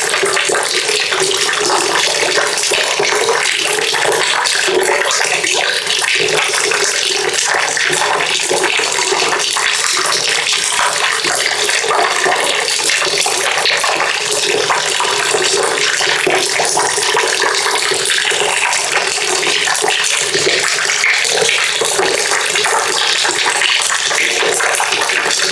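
Water pouring steadily into a bucket: a continuous, unbroken splashing rush.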